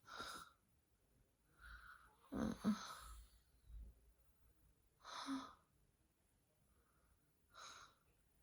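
A dozing woman's soft breathing: five airy breaths, one every two to three seconds, the loudest about two and a half seconds in carrying a brief low snore.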